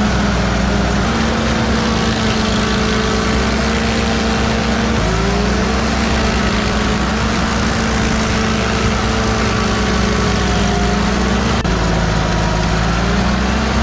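An engine-driven machine running steadily under power, its pitch stepping slightly about five seconds in and again near the end.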